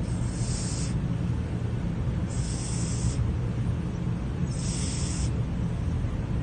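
Sleeping cat snoring: a high hissing breath comes about every two seconds, three times, over a steady low rumble.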